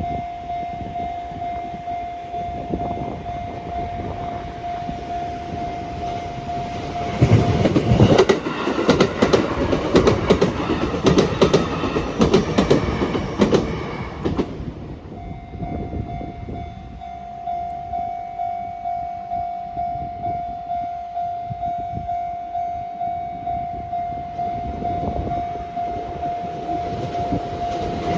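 Railway level-crossing alarm ringing with a steady tone. About seven seconds in, a train passes over the crossing for about seven seconds, its wheels clicking rapidly over the rail joints. The alarm then rings on in even pulses about once a second, and another train starts to pass near the end.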